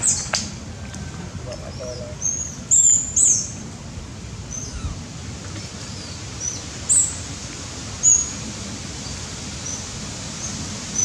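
Short, high-pitched animal chirps and squeaks at irregular intervals, a few of them louder, over a steady outdoor background noise.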